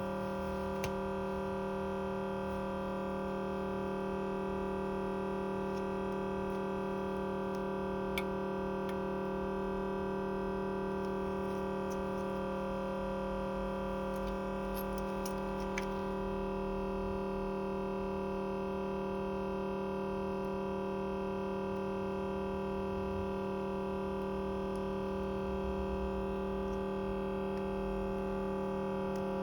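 A steady, unchanging hum made of several held tones, with a few faint clicks.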